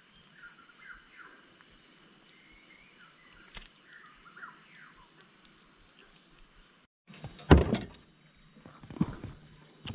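Faint bird chirps over quiet outdoor ambience. About seven seconds in, the sound drops out completely for a moment, then comes a single sharp thump followed by a few softer knocks.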